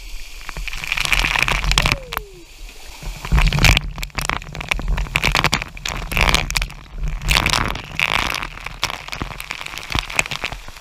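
Water pouring and dripping off a rock ledge onto a paddleboard and the camera, an uneven spattering and splashing of drops that comes and goes in surges, over the sound of the river.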